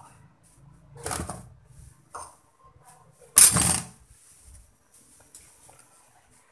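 Plastic bowls and dishes clattering against each other and a stainless steel sink as they are cleared for washing: a short clatter about a second in, a small knock near two seconds, and a louder clatter about three and a half seconds in.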